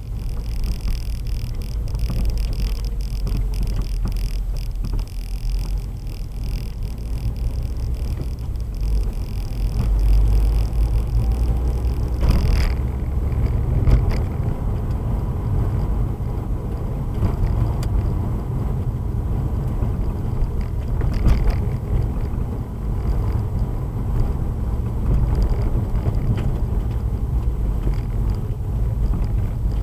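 A car in motion with a steady low rumble, broken by a few short clunks, one of them about halfway through. The audio is boosted.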